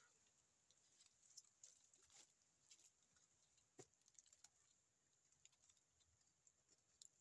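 Near silence: only faint, scattered clicks and scrapes of teeth gnawing bark off a tree trunk, over a faint steady high-pitched hiss.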